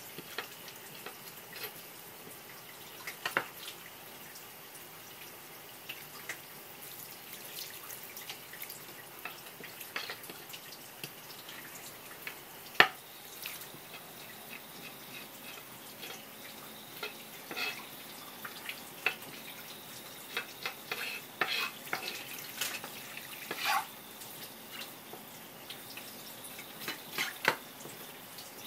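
Kitchen tap running in a thin stream onto a wooden cutting board and wet hands as scallop pieces are rinsed under it. Scattered sharp wet clicks and taps on the board; the loudest comes about halfway through, and more cluster in the last third.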